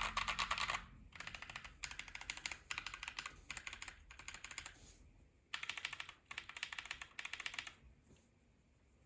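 Fast typing on a KBD67 Lite mechanical keyboard with unlubed Neapolitan Ice Cream switches, an FR4 plate and GMK keycaps. Rapid key clacks come in bursts with short pauses and trail off about a second before the end.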